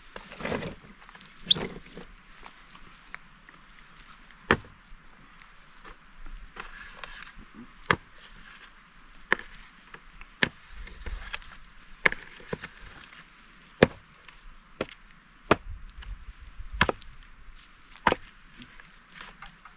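Wood being chopped into small pieces for a campfire: sharp, single chops landing every one to three seconds.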